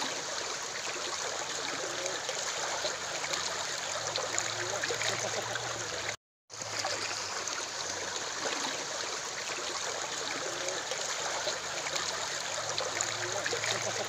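Water rushing and splashing down a concrete irrigation channel, a steady rush that drops out briefly about six seconds in and then resumes.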